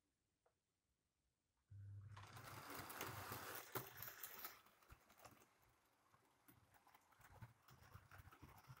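Model Flying Scotsman locomotive running past on the track with its coaches: a small electric motor humming under a dense clicking and rattling of wheels on the rails. It starts suddenly about two seconds in, is loudest as the engine passes, and fades to a fainter rattle as the coaches follow.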